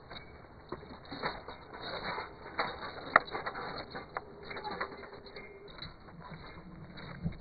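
Irregular clicks and knocks of bricklaying work, bricks and tools handled against masonry, with one sharper knock about three seconds in.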